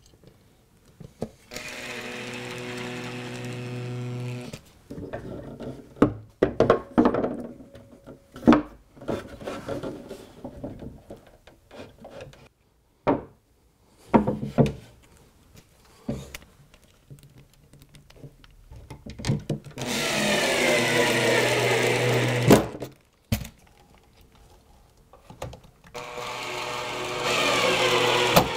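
Makita cordless drill driving screws to fix shelf brackets to a wall board: three runs of the motor, the later two louder, with its pitch falling as each screw tightens. Between the runs come knocks and clicks of the brackets, screws and tool being handled.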